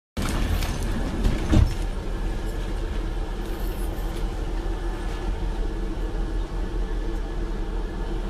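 Steady low rumble of road noise inside a moving van, with a couple of knocks about a second and a half in.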